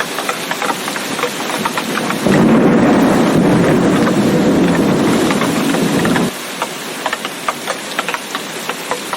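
Steady rain with many sharp drops pattering close by. A loud low thunder rumble starts suddenly about two seconds in and cuts off just as suddenly about four seconds later.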